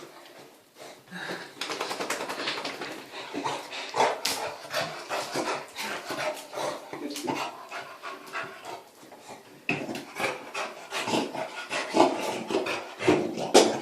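Wet beagle panting rapidly and grunting as it dries itself off after a bath, easing for a moment near the middle before starting up again.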